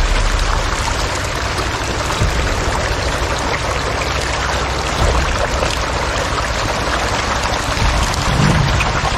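A dense mass of catfish thrashing and splashing at the surface of a crowded pond, making a steady churn of splashing water as they mob for feed.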